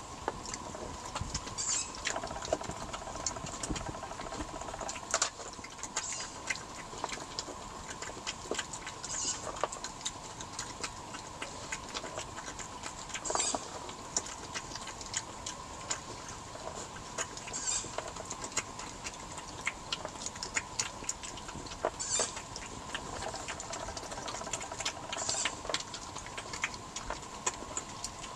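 Two European badgers eating peanuts from a tray close by: a steady irregular patter of small crunching, clicking chews. A faint steady high hum runs underneath.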